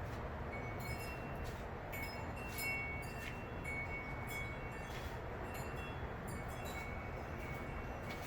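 Light metallic clinks, a dozen or so spread irregularly, each ringing briefly at a high pitch, as small metal pieces are handled and set down during an engine rebuild. They sit over a steady background hum.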